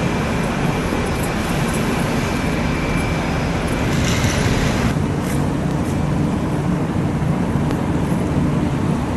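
An engine running steadily under a wide wash of noise, its low hum holding even throughout.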